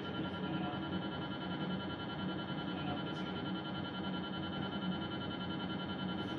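GE MRI scanner's gradient coils sounding during a sagittal LAVA dynamic pelvis acquisition: a steady drone of several held tones that does not change.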